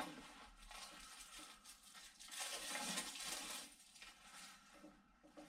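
Brown paper protective wrapping being handled and pulled off a bicycle's front fork, rustling and crinkling on and off and loudest for about a second in the middle.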